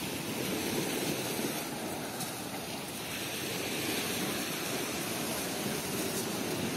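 Steady wash of sea surf breaking on the beach.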